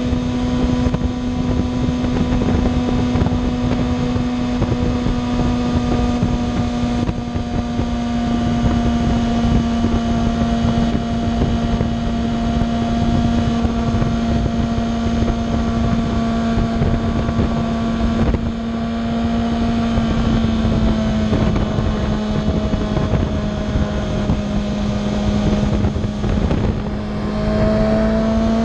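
Kawasaki ZX-6R's inline-four engine running steadily at highway cruising speed, with wind noise over the microphone. The engine note sags slightly past the middle and climbs again near the end.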